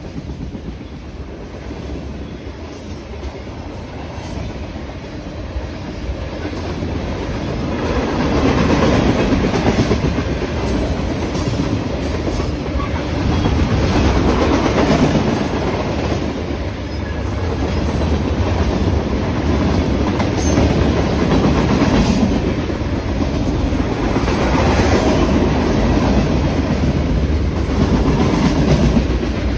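Freight train of covered hoppers, tank cars and boxcars rolling past, its steel wheels clacking on the rails; it grows louder about eight seconds in.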